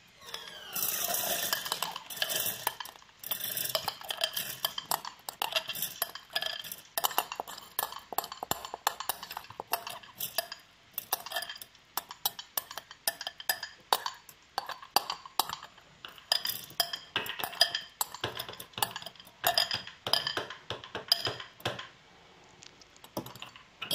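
Soaked jowar grains being spooned from a glass bowl into a stainless-steel mixer-grinder jar: a spoon scraping and clinking against the bowl and the wet grains falling onto the metal jar, a run of quick irregular clicks and scrapes that eases off near the end.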